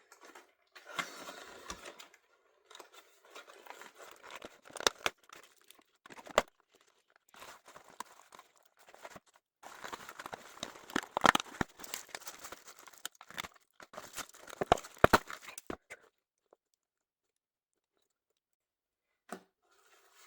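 Doll packaging being opened by hand: irregular crinkling and tearing of plastic and cardboard, with many sharp clicks and snaps, stopping about four seconds before the end.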